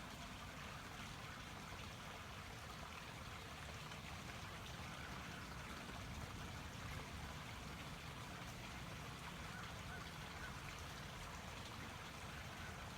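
Faint, steady trickling of water.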